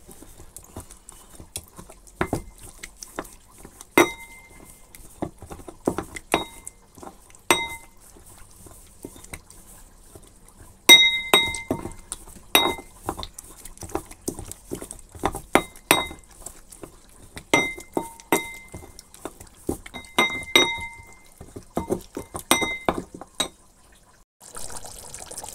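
Pestle pounding dried red chillies into a paste in a metal mortar: irregular knocks and clinks, many with a short metallic ring.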